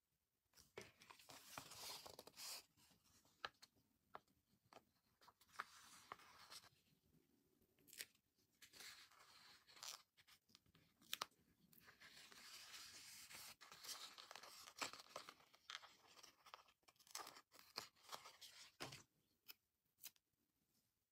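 Glossy sticker sheet being handled and small stickers peeled off their backing: soft crinkling and tearing rustles with many sharp clicks, stopping about a second before the end.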